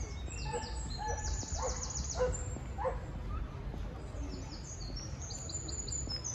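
Birds chirping: many short, high calls in quick succession, over a steady low rumble of outdoor background noise.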